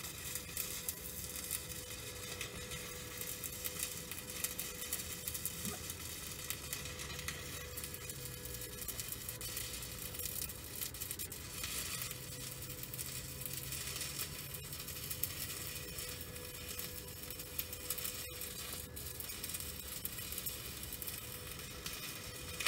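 Small 120-volt inverter stick welder arc welding overhead on a steel trailer crossmember: the steady crackling sizzle of the arc as a bead is run, stopping suddenly at the end.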